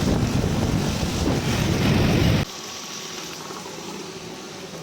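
Wind buffeting the microphone as a loud, gusty rumble, which cuts off abruptly about halfway through to a much quieter background hum.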